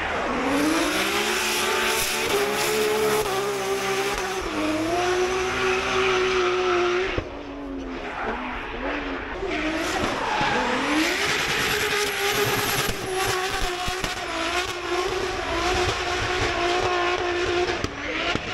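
Racing car engine revving hard and held at high revs, with tyres squealing. The revs fall away about seven seconds in, then climb and hold again.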